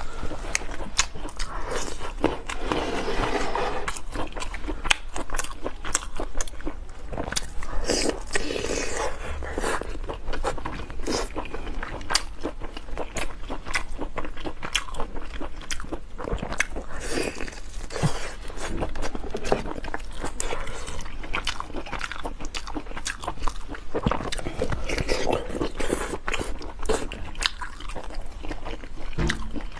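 A person eating: crunchy bites and chewing, a dense run of sharp crunches following one after another.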